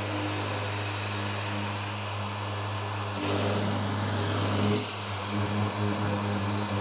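Random orbital sander with dust extraction running steadily, sanding body filler on a truck hood with 320-grit paper to smooth out 80-grit scratches. The hum wavers slightly about three and five seconds in.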